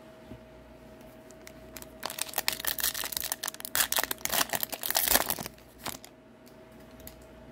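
Foil wrapper of a 2023-24 Upper Deck Series 2 hockey card pack being torn open and crinkled by hand. It is a dense crackling with many sharp snaps, starting about two seconds in and lasting about three and a half seconds.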